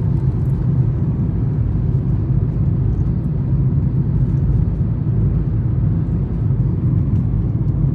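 Steady low rumble of a car driving at a constant pace: engine and tyre noise as heard inside the car.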